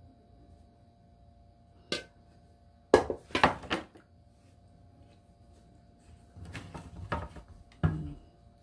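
Kitchenware being handled: a single click about two seconds in, then a quick run of knocks and clinks, and further rustling and handling near the end with one sharp knock.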